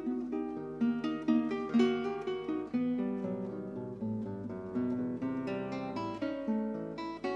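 Background music: an acoustic guitar plucking a melody of quick single notes, each starting sharply and fading.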